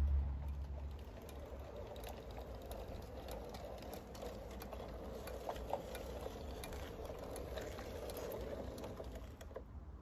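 A large-scale garden railway train rolling past, its wheels clicking over the rail joints with a light rattle of wagons. A steady mechanical hum from the locomotive's drive grows through the middle and drops away near the end.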